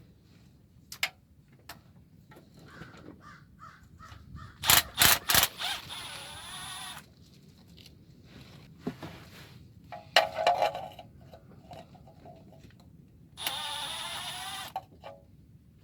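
A cordless drill runs in short bursts of whine, spinning out oil pan bolts. A cluster of sharp metallic clicks comes about five seconds in.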